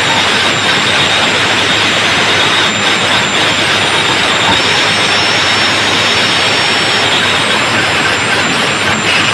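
A DJ sound-box speaker wall playing at competition volume: a loud, steady, dense roar with no clear beat or tune.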